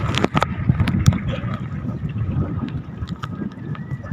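Strong wind rumbling on the microphone over open sea, with scattered sharp clicks and knocks.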